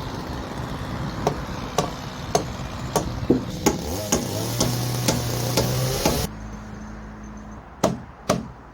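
Hammer blows on wood, a steady rhythm of about two strikes a second, followed by two sharper strikes near the end.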